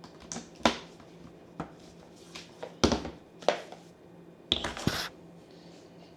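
A few sharp clicks and knocks of objects being handled, with a short scraping rustle about four and a half seconds in, over a faint steady hum.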